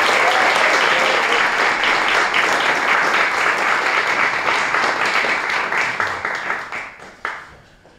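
Audience applauding, a dense patter of many hands clapping that dies away about six or seven seconds in, with one last stray clap.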